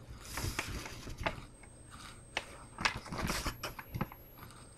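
Glossy paper coupon booklet being handled and its coupons turned by hand, giving irregular crinkling and crackling clicks, busiest about three seconds in.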